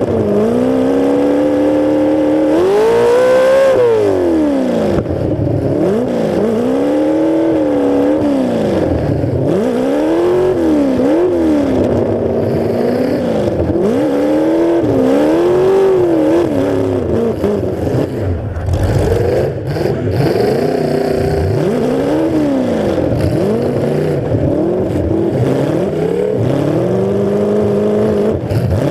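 Demolition derby car's engine, exhausting through two open stacks straight up through the hood, revving hard and backing off again and again as the car is driven. The pitch rises and falls every second or two.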